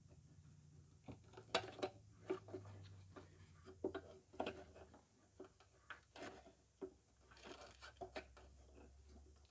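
Faint, scattered plastic clicks, taps and rattles as gloved hands work the low- and high-beam bulb sockets and connectors off the back of a headlamp assembly, over a low steady hum.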